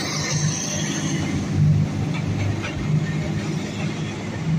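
Diesel-hauled passenger train rolling past, its locomotive and coaches making a steady low rumble on the track.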